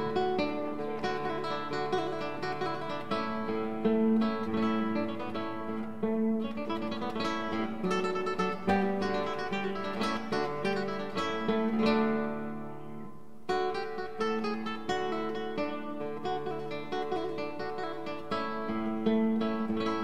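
Background music played on acoustic guitar with plucked notes. It thins out briefly just past halfway, then comes back in.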